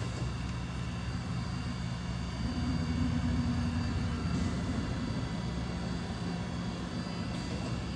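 DVF 5000 five-axis CNC machining centre running: a steady machine hum with several held tones. A slightly louder tone comes in between about two and a half and four seconds in.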